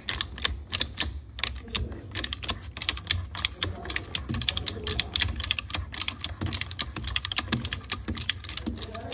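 Ratchet pipe-threading die stock cutting a thread on galvanized iron pipe: rapid, sharp clicking of the ratchet as the handle is worked back and forth, over a steady low hum.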